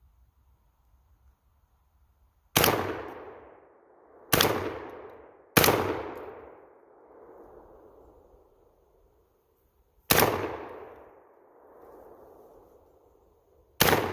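Panzer Arms AR-12 semi-automatic 12-gauge shotgun firing five buckshot rounds at uneven intervals, three close together, then one after a pause of about four seconds and one more near the end. Each shot is followed by a rolling echo that fades over a second or two.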